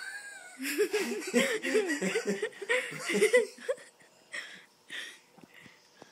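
A person laughing in a quick run of high-pitched, wavering laughs for about three seconds, followed by two short breathy bursts near the end.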